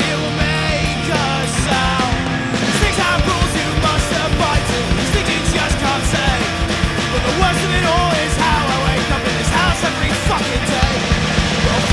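Pop-punk band recording playing: electric guitars, bass and drums driving steadily, with a wavering melodic line over them.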